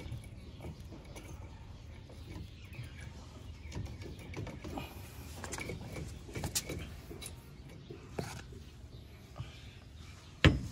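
Scattered metallic clicks and light knocks of hand tools working on the propeller shaft bolts under a Mahindra Bolero pickup, with one much louder knock near the end.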